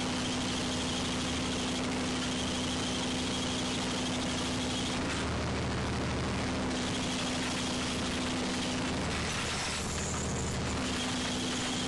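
A fishing trawler's engine and net-drum machinery run steadily as the trawl net is paid out. A steady hum and a high whine drop out twice, about five and about nine seconds in, while a lower hum comes up.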